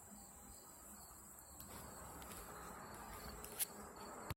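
Faint, steady, high-pitched insect buzz, with a sharp click about three and a half seconds in and another at the very end.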